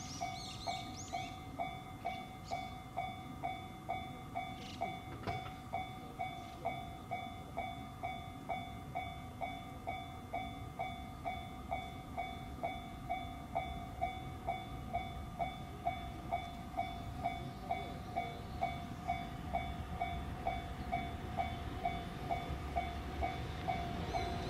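Level-crossing warning bell ringing steadily, about two dings a second, as a train approaches the crossing. Underneath, the low rumble of the JR Freight EH200 electric locomotive and its oil train grows louder near the end.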